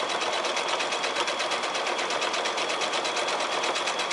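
Domestic sewing machine running steadily at speed, quilting through the fabric layers of a quilt block, with a rapid, even rhythm of needle strokes.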